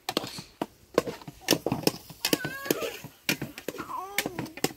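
An irregular series of sharp knocks and clacks, about a dozen, with two short wailing cries, one about halfway through and one near the end.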